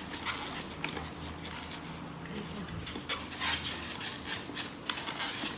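Handling noises from an unboxing: packaging and the machine's plastic parts being moved and rubbed, with a few light clicks and knocks about three to five seconds in.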